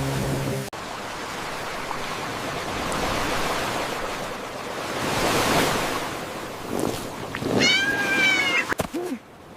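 A rushing noise that swells and fades, followed near the end by a cat meowing once, about a second long.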